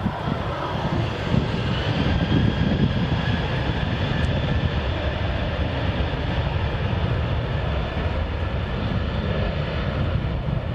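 Boeing 737-800's twin CFM56-7B turbofans at takeoff thrust during the takeoff roll: steady jet engine noise with a heavy low rumble.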